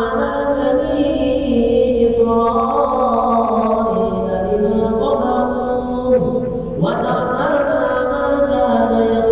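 Quran recitation of ruqyah verses, chanted melodically by a single voice that draws out long held notes with slow glides in pitch. A new phrase begins with a rising note about seven seconds in.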